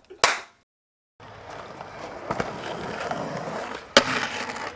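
A short sharp click and a second of silence, then skateboard wheels rolling on rough concrete with a knock about halfway. Near the end a loud clack as the board lands on a concrete ledge and grinds along it.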